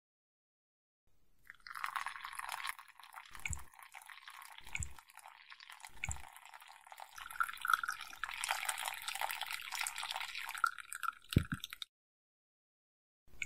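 Water pouring and trickling into a cup like a pour-over coffee drip, for about ten seconds before it cuts off suddenly. Four soft low thuds come at intervals along the way.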